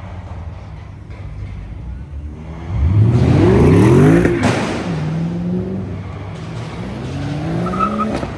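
Car engine accelerating hard: a loud rising engine note about three seconds in, easing to a steadier pitch, then climbing again near the end.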